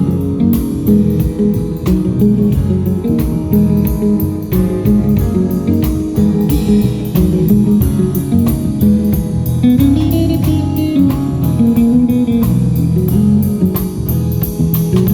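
Live band playing during a sound check: guitar lines over bass with a steady beat.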